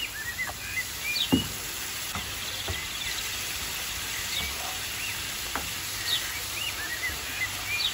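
Onion and spice masala sizzling in a frying pan on a gas hob while it is stirred with a wooden spoon, with a few knocks of the spoon against the pan, the loudest about a second and a half in.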